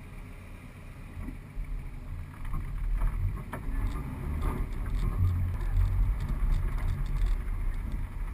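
Suzuki four-wheel drive driving along a rutted sand track: a low engine and tyre rumble that grows louder about two and a half seconds in, with knocks and rattles as the vehicle jolts over the bumps.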